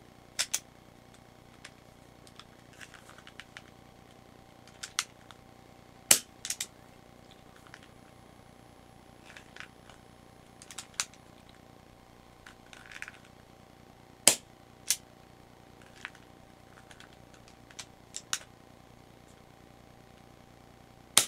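Metal mechanism of a Marushin Taurus Raging Bull gas revolver clicking as it is handled and its hammer cocked: a string of scattered sharp clicks, two of them much louder snaps about 6 and 14 seconds in, with softer clicks and handling rustle between.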